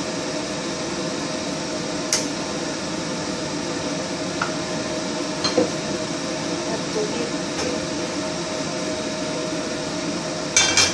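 A steady mechanical hum with a faint even whine, like a kitchen fan or appliance running, under a few light clicks of utensils and cookware, with a short clatter near the end.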